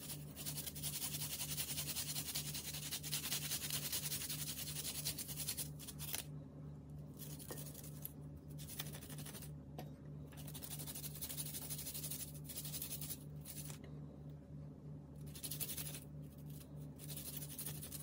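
Garlic cloves being grated on a clear plastic grater: fast, fine scratching strokes, broken by several short pauses.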